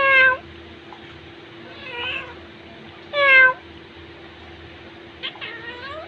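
Pet parakeets calling: two loud, drawn-out calls with a slightly falling pitch, at the start and about three seconds in, a fainter call about two seconds in, and short rising chirps near the end, over a faint steady hum.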